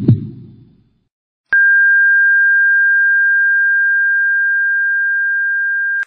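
Heart-monitor flatline sound effect: one steady high electronic beep starts about a second and a half in, holds for about four and a half seconds while easing slightly, and cuts off suddenly. At the start the last heartbeat thump dies away, followed by a moment of silence.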